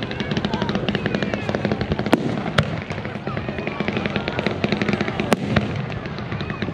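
Fireworks display: dense, rapid crackling from crackle effects, with sharp bangs of shells bursting about two seconds in, again half a second later, and about five seconds in.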